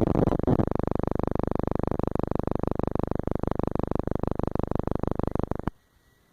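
Beagle puppy snoring: one long, even buzzing snore that stops abruptly about five and a half seconds in.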